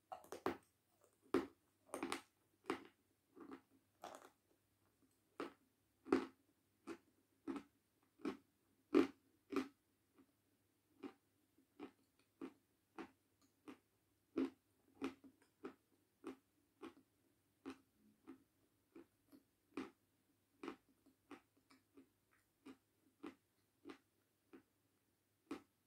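A chunk of 'Jasmine' edible chalk is bitten and chewed, making a steady run of crisp crunches about one or two a second. The crunches are loudest in the first ten seconds, then grow softer and quicker as the chalk is ground down.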